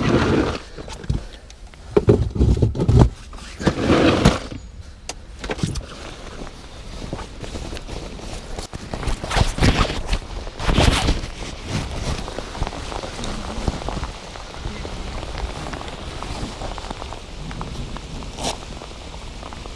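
Handling noise close to the microphone: rain-jacket fabric rustling and brushing over the chest camera, with scattered knocks and thumps of boat gear being moved. The knocks come in the first few seconds and again about halfway through, and a steadier rustle follows.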